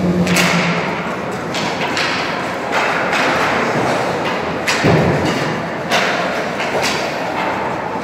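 Sharp knocks and thuds of hockey pucks and sticks echoing around an ice rink, coming irregularly every half-second to second, the heaviest thud about five seconds in.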